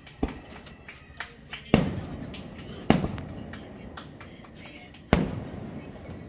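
Aerial fireworks exploding: a string of sudden booms, three of them loud, each dying away in a rolling echo, with smaller pops and crackles in between.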